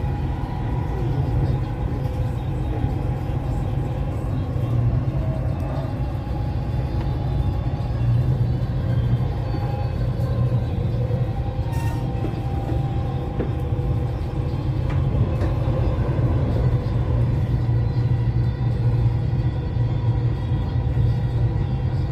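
Dubai Metro train carriage running along an elevated track, heard from inside: a steady low rumble with faint steady tones above it.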